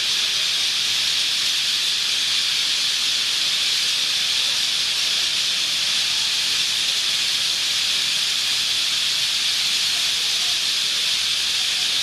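Massed calling of a huge flock of southern martins, parrots and parakeets swirling to roost, blending into one dense, steady, high-pitched din in which no single call stands out.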